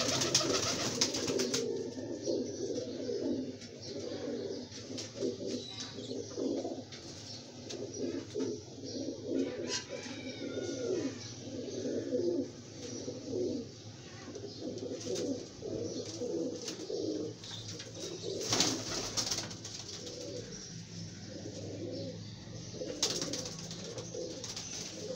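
Domestic pigeons cooing over and over, low and pulsing, with a few short noisy bursts of about a second each at the start, past the middle and near the end.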